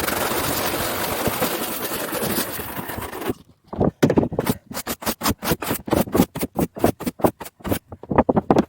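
A steady hiss for about three seconds that fades away, then rapid scraping strokes, about four a second.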